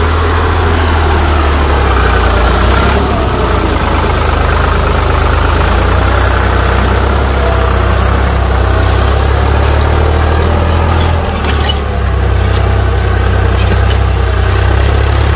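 Ford 4610 tractor's 3.3-litre three-cylinder diesel running steadily under load as it pulls a disc plough through the field soil. The engine note dips briefly about two-thirds of the way through, then picks up again.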